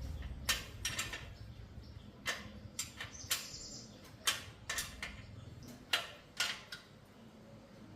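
About a dozen sharp metallic clicks and taps at irregular intervals, from hand tools and bicycle parts being handled during repair work.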